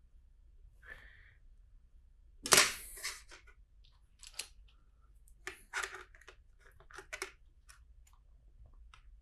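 Plastic LEGO bricks clattering and clicking as pieces are handled. The loudest is a short clatter about two and a half seconds in, followed by a scattered run of smaller sharp clicks.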